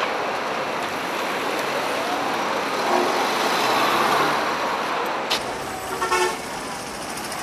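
City street traffic: cars and buses passing close by, a steady rush of engine and tyre noise. About six seconds in, a brief car horn toot.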